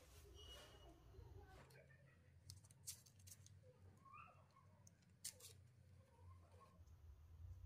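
Near silence: faint room tone with a few soft clicks, the two sharpest about three and five seconds in.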